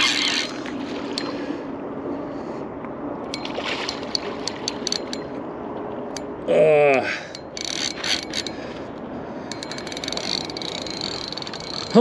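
Fishing reel clicking in short runs of quick ticks while a large sturgeon is fought on rod and line. A man's voice gives a brief groan that falls steeply in pitch about six and a half seconds in, and another at the very end.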